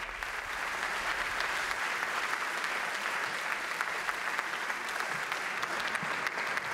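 Audience applauding: a steady round of clapping from a seated crowd.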